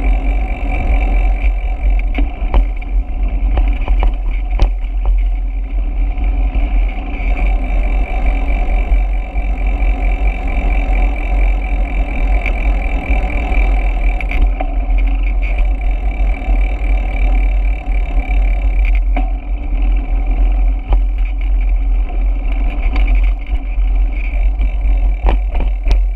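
Steady wind rumble and road noise on a camera riding on a moving bicycle, with a few sharp clicks or knocks along the way.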